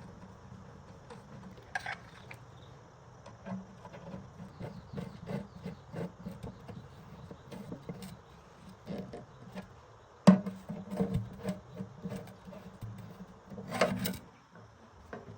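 Hand work on a generator being taken apart: scattered clicks and knocks of tools and parts being handled, with one sharp knock about ten seconds in and a short rattle near the end.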